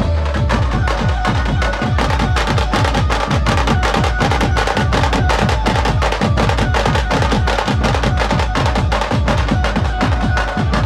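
Dhumal band drumming: side drums and bass drums beaten in a fast, dense rhythm with hand cymbals ringing over a steady low beat.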